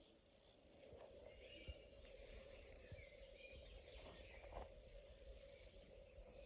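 Near silence: faint ambient room noise with a few short, distant bird chirps and one or two faint knocks.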